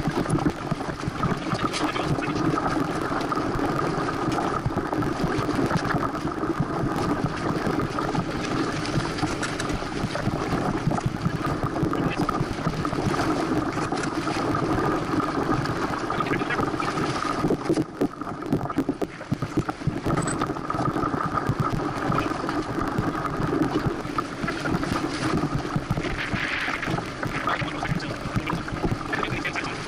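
Steady rush of wind and water on a small sailboat moving under sail, picked up by an action camera's microphone. It dips briefly about eighteen seconds in.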